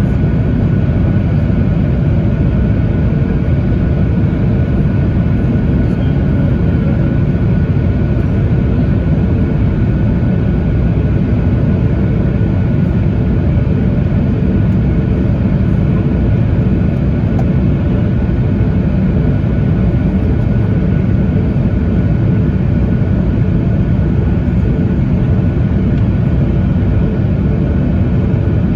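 Steady cabin drone of a Boeing 737-900ER airliner in flight: engine and airflow noise, strongest in the low end, with a faint steady whine above it.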